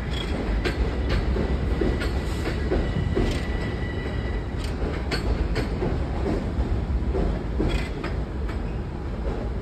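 Long Island Rail Road commuter train running along the tracks: a steady low rumble with irregular sharp clacks of wheels over rail joints and switches. A thin, steady wheel squeal sounds for about the first four and a half seconds.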